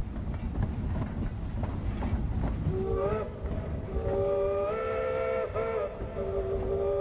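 Narrow-gauge train rolling with a steady rumble and rail clatter. About three seconds in, East Broad Top No. 15's steam whistle sounds a short blast, then a long blast from about four seconds in with a brief break near the end.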